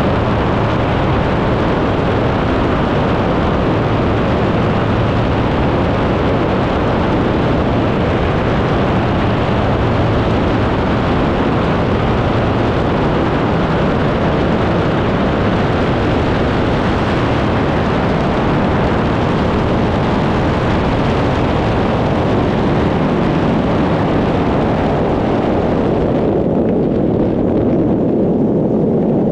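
A PS-28 Cruiser light aircraft's Rotax 912 four-cylinder engine and propeller droning steadily in cruise, heard inside the cockpit with a rushing hiss of airflow. About three seconds before the end the hiss dulls, leaving a lower drone.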